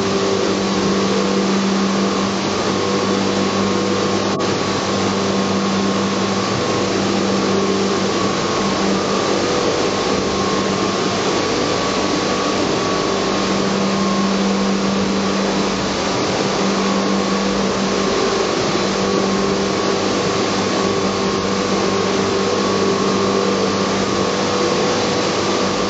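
Pumps and machinery of a water-filtration life-support plant running: a loud, steady hum with a few held tones over a constant hiss.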